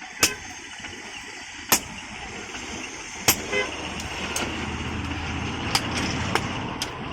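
Blacksmith's hammer striking iron on an anvil, sharp blows about every one and a half seconds, then lighter, quicker taps near the end. Behind them a steady rumble like passing traffic grows in the second half, with a short horn-like toot about three and a half seconds in.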